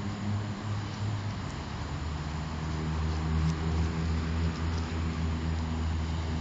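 Engine running steadily with a low hum, its pitch shifting slightly about a second and a half in, over a steady hiss of outdoor noise.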